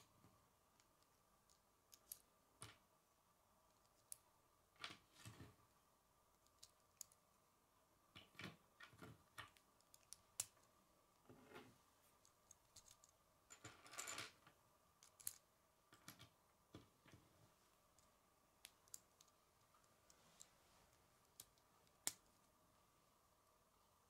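Faint, irregular clicks and taps of plastic K'nex rods and connectors being handled and snapped together, with a short cluster of rattling about fourteen seconds in. A faint steady hum runs underneath.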